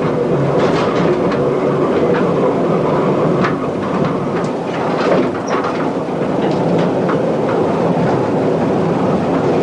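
Mine railway train running along its track: a steady rumble with frequent irregular clicks and rattles from the wheels and cars.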